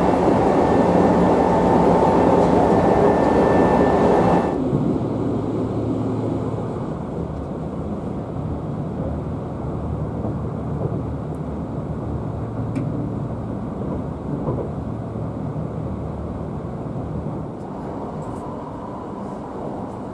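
Running noise of a Kintetsu 16200 series electric train heard inside its passenger cabin: a steady rumble of wheels on track. It is louder and hissier at first, then drops to a quieter, lower rumble about four seconds in.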